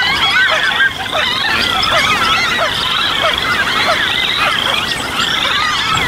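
Dense spring marsh chorus of birds and frogs calling together: many overlapping chirps and calls, with a high pulsed trill repeating about once a second.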